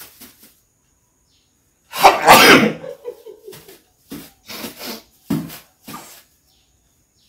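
A person sneezing once, loudly, about two seconds in, followed by a few short, softer sounds of voice.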